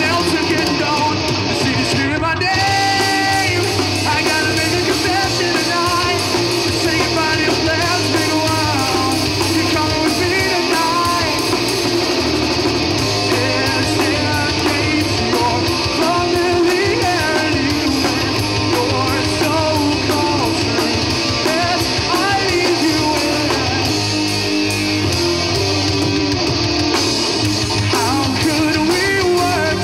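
Rock band playing live and loud, with electric guitar and singing.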